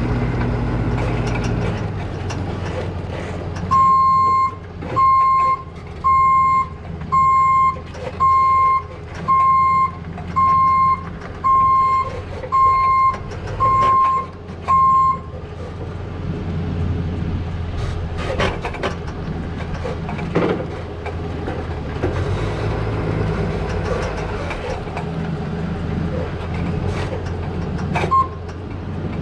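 A vehicle's reverse alarm beeping about once a second, eleven beeps in all, over a running engine. Once the beeping stops, the engine keeps running and there are a few sharp knocks.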